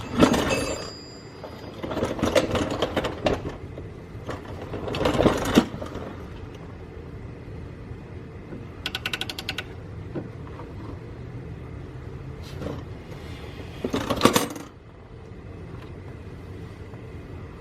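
Metal hand tools clanking in several short bursts, with a ratchet wrench clicking rapidly for about half a second near the middle, as nuts and bolts on a car's rear differential are worked loose.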